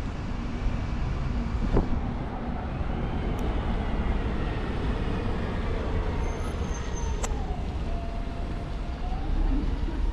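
Steady town-centre ambience: a continuous rumble of road traffic, with faint engine tones slowly changing pitch and a couple of sharp clicks.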